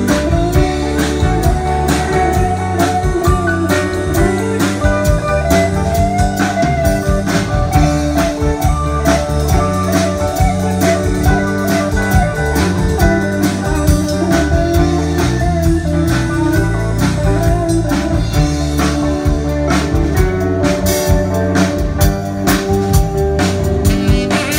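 Live band playing amplified music, with guitar and a drum kit keeping a steady beat.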